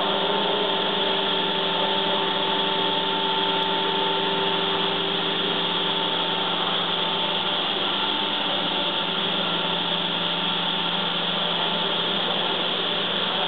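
Sternal Fog low-pressure fog humidifier running steadily: an even machine hum with a hiss over it, unchanging throughout.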